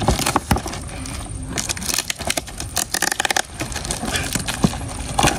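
Packing tape being ripped and peeled off a heavily taped cardboard gift box, a dense run of crackles and tearing with the box and wrapping rustling, and a short rasping screech of tape coming away about three seconds in.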